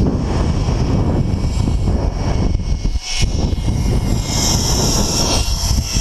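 Wind rushing over the microphone on a zipline ride, with the trolley's pulleys running along the steel cable; about four seconds in, a high steady whine from the trolley comes up on top of the wind.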